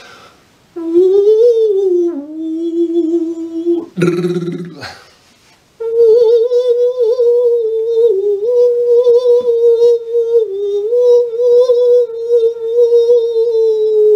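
A man's voice imitating a musical saw: a sustained, wavering tone that slides up and down in pitch. It comes in a short phrase, then a brief noisy break about four seconds in, then a longer held phrase.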